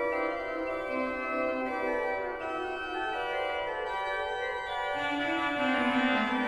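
Baroque church pipe organ playing a French basse de trompette movement. Held chords sound at first, and about five seconds in a louder low reed line enters and steps downward.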